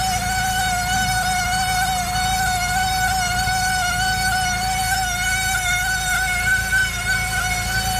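A steady, high-pitched squeal from the right front of a 2002 Saab 9-5 Aero, holding one wavering pitch without a break over a low rumble.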